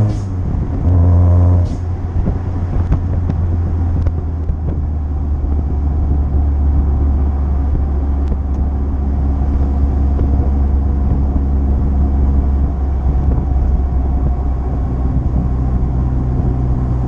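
Supercharged 1.6-litre Mazda Miata (Jackson Racing M45) lifting off for a gear change, with a short hiss from the blow-off valve as the throttle closes. A brief burst of throttle follows, ending in another hiss under two seconds in. The engine then drones steadily at cruising speed under wind and road noise in the open cockpit, its note rising slightly near the end.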